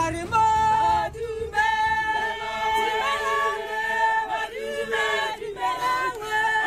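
A group of camp staff singing a welcoming song together, voices only, with held notes that bend between pitches.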